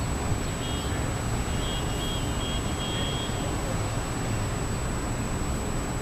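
Steady low rumble of outdoor background noise, with a short broken run of faint, high-pitched beeps from about half a second to three seconds in.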